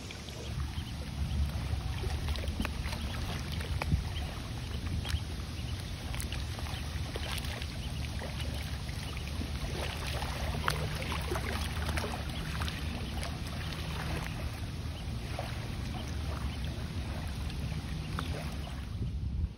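Wind rumbling on the microphone over water lapping at a shallow lake edge, with many small clicks and splashes in the water.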